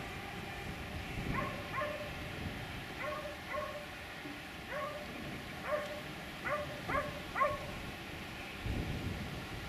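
A dog barking, about nine short barks at uneven intervals, some in quick pairs, over a low steady rumble.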